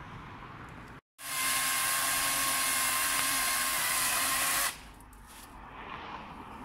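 Florabest 40 V cordless electric chainsaw running at full speed as it cuts into a branch, a loud steady whine that starts about a second in and stops abruptly some three and a half seconds later.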